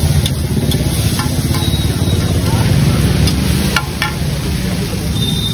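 Metal spatula clinking and scraping on a large iron griddle as chow mein noodles are stirred and fried, a few sharp clinks scattered through, over a steady low rumble.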